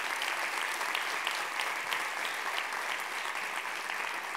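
A large audience applauding: many hands clapping at once, dense and steady.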